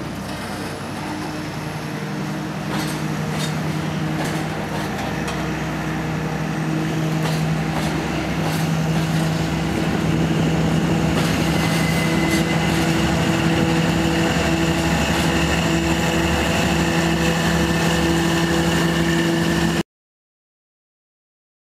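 Freight train of tank wagons rolling slowly through a rail yard, a steady rumble with a constant engine drone and a few clicks early on. It grows louder about halfway through and cuts off suddenly near the end.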